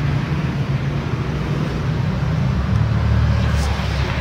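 Mitsubishi L300's four-cylinder diesel engine idling with a steady low rumble.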